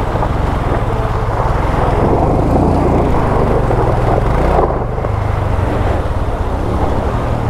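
A car's engine running hard under load as it climbs a rough, rocky crossing, loud and steady, over a rushing noise.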